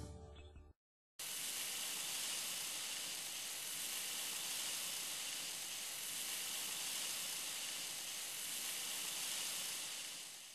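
Closing music dies away, a moment of dead silence, then a steady, even hiss that fades out at the end.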